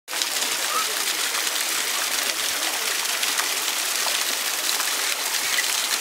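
Geyser spring water splashing and trickling steadily down over mineral-crusted rock terraces, with a couple of faint short chirps.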